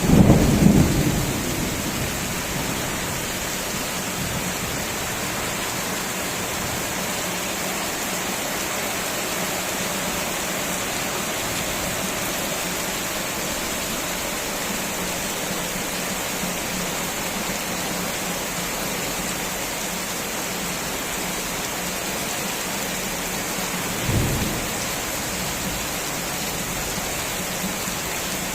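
Heavy rain falling steadily. A loud rumble of thunder at the start fades over a couple of seconds, and a shorter low rumble comes near the end.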